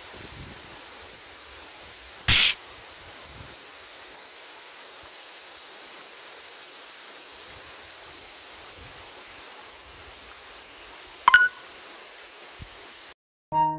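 Steady rush of a waterfall. A short loud burst of noise comes about two seconds in, and a sharp click near the end. The sound cuts off suddenly just before the end.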